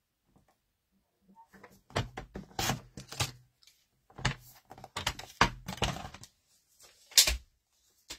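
Paper trimmer cutting a small square of patterned paper: clusters of clicks and scrapes as the blade head is worked along its rail and the paper is handled, with a single sharp knock near the end.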